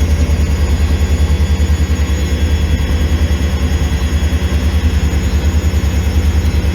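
Automatic washing machine running, a steady low mechanical hum with a fast, even throb.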